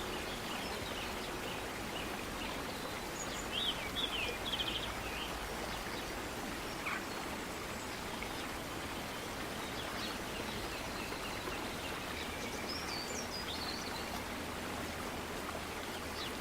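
Outdoor nature ambience: a steady, even rushing hiss with a few short bird chirps, a cluster about three to four seconds in and another near the end.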